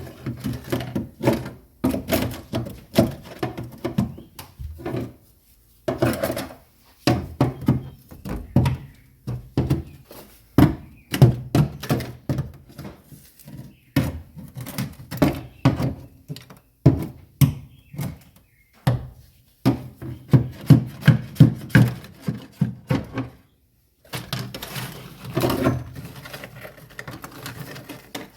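Rubber mallet knocking on frozen factory sound deadening stuck to a car's steel floorpan. It comes in runs of dull thunks, several a second, with short pauses. The deadening has been made brittle with dry ice so it cracks loose from the metal.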